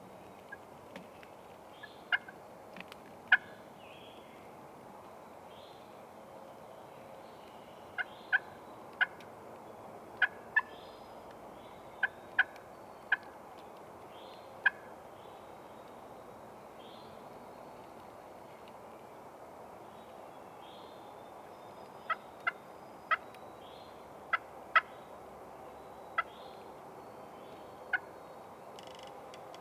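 Wild turkey calling: short, sharp notes in small clusters every second or two, over a steady background hiss, with faint higher chirps of other birds.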